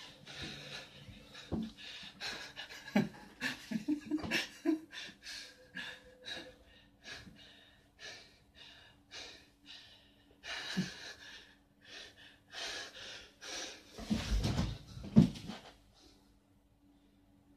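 A man gasping and panting hard as he is choked, with short ragged breaths and scuffling. A few loud, deep thumps come near the end.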